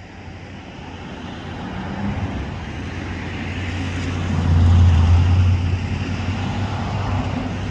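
A motor vehicle passing close by: a low engine and road rumble that builds, is loudest about five seconds in, then eases off.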